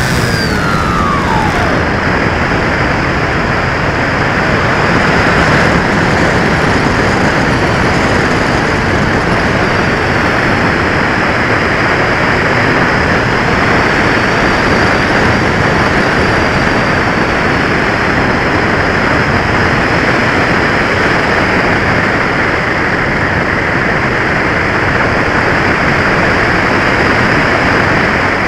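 Steady rush of airflow over a Bixler 2 RC foam plane's onboard camera as it glides with the motor cut out by a flat battery. A brief falling whine in the first two seconds, and a thin high tone wavers through the rush.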